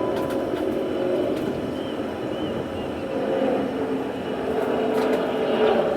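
Jet airliner engine noise, steady and continuous.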